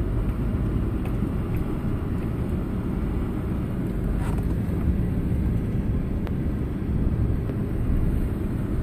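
A car driving slowly, with a steady low rumble of road and engine noise heard from inside the cabin.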